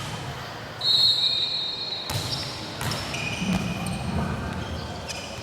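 Volleyball play on an indoor court: several short high-pitched squeaks from players' shoes on the floor, and a sharp ball hit about two seconds in, over a low hall murmur.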